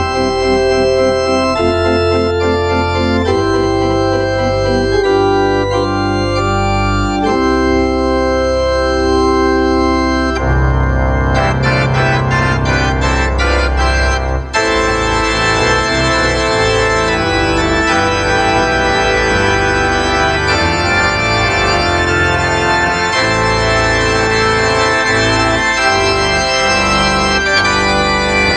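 Organ played from a three-manual drawknob console: sustained chords over deep pedal bass notes. About ten seconds in comes a run of quick notes, and from about fourteen seconds the chords grow fuller and brighter.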